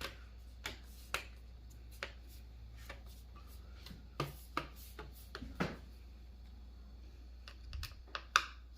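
Scattered light clicks and taps of small plastic and metal laptop parts being handled during reassembly, with a few sharper clicks close together near the end as the bottom panel is pressed into place.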